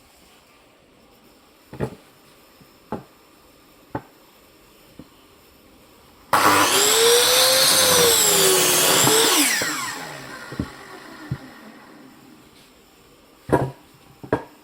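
Electric saw starting abruptly and cutting firewood for about three seconds, its motor pitch wavering up and down under load, then winding down. Sharp knocks of wood being handled come before and after.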